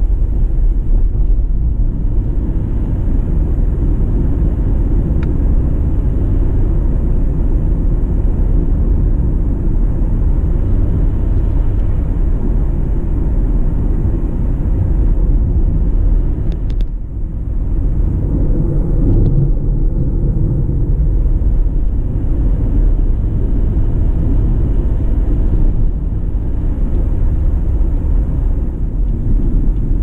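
A car driving along a road: a steady low rumble of engine and tyre noise, dipping briefly about seventeen seconds in.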